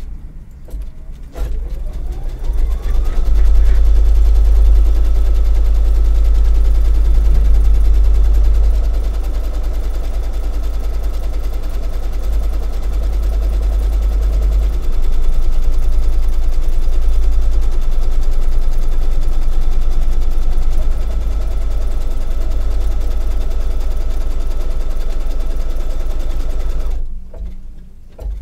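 Baby Lock Luminaire 2 embroidery machine stitching out a placement line. Its motor whine rises as it starts up, then it runs steadily at a rapid stitch rate, a little louder and softer by turns as the hoop moves. It stops shortly before the end.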